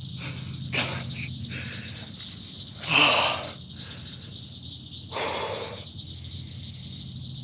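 Insects chirring steadily, with a man's two loud, breathy exhales about three and five seconds in, as he catches his breath in excitement.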